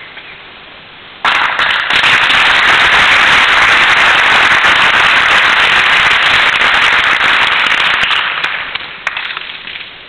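Audience applause, starting suddenly about a second in, loud and steady for several seconds, then dying away into a few last scattered claps near the end.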